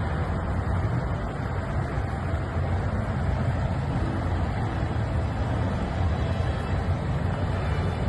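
Steady low rumble of distant road traffic.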